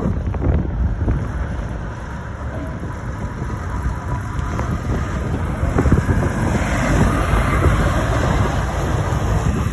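Volvo FH lorry with a bulk tipper trailer driving past close by, its engine and tyres swelling in level past the middle, over heavy wind buffeting on the microphone.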